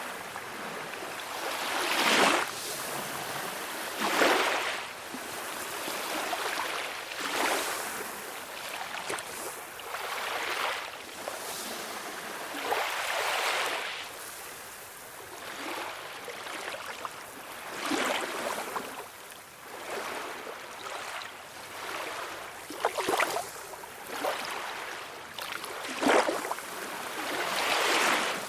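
Calm sea waves breaking and washing in: a steady rush of surf that swells every two to three seconds.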